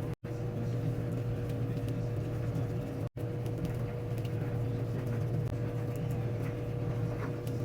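A steady mechanical hum with a faint high whine, with faint scattered ticks over it. The sound drops out for an instant just after the start and again about three seconds in.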